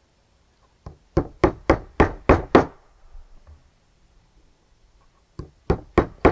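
Small hammer tapping a nail through the top bar into the side bar of a wooden beehive frame, in quick sharp strikes about three a second. A run of about seven taps, the first light, then a pause, and a second run starting near the end.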